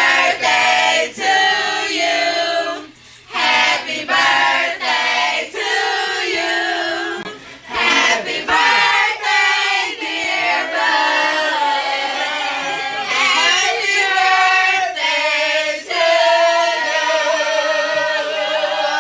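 Singing voices, like a choir or a vocal track, with sustained sung notes that bend in pitch.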